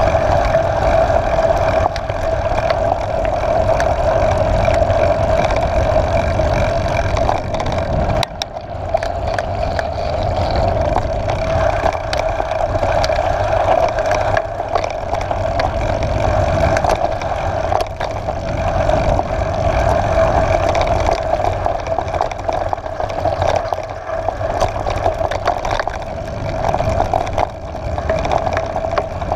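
Mountain bike riding along a dirt and gravel track: a steady hum and rumble from the tyres on the ground, with many small knocks and rattles from the bumpy surface.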